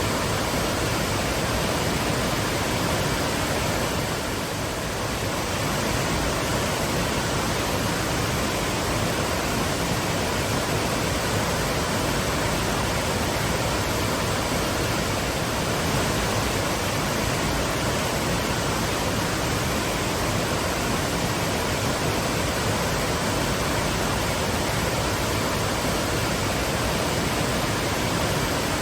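Waterfall with a steady, full roar of falling and splashing water.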